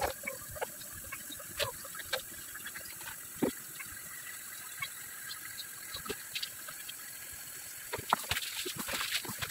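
A dog being bathed by hand: scattered small splashes and rubbing sounds as soapy fur is worked, then a denser run of splashing near the end as water is poured over the dog from a bowl.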